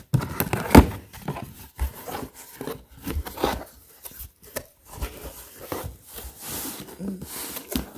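Cardboard shipping box being opened by hand: flaps pulled apart and folded back, the cardboard rubbing and scraping with irregular knocks, the sharpest one about a second in.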